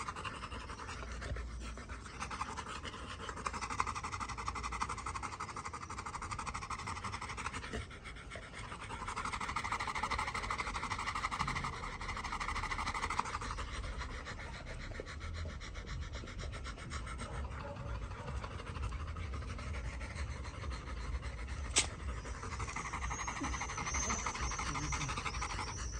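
Yellow Labrador retrievers panting rapidly in long runs, easing off briefly now and then. A single sharp click sounds near the end.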